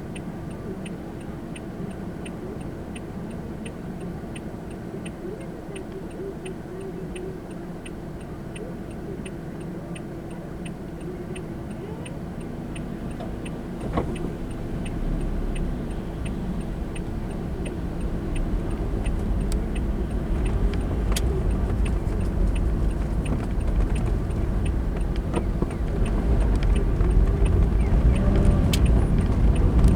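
A car's turn-signal indicator clicking steadily, about one and a half clicks a second, over low engine and road noise inside the cabin. About halfway through the clicking stops and the car pulls away, its engine and tyre noise growing steadily louder.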